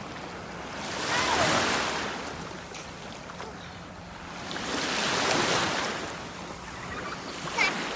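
Sea waves washing onto the shore, the surf swelling and falling back twice, about four seconds apart.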